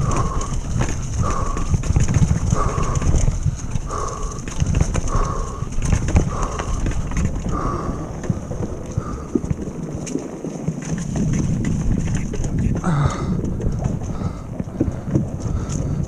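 Mountain bike riding along a dirt trail and wooden boardwalk: a steady low rumble of tyres and wind on the bike-mounted microphone, with a short squeak repeating about once a second that stops about nine seconds in.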